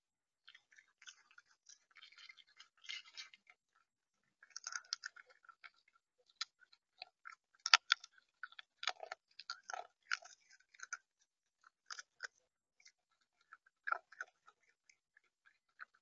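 Irregular, close-up clicks and crunches of seed being pecked and cracked on a bird feeder, with the loudest crack about halfway through.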